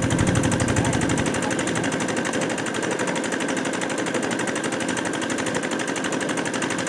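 Rice combine harvester, a DC688Q fitted with a DC95 engine, running steadily as it cuts through standing rice: a fast, even mechanical clatter over a steady engine hum.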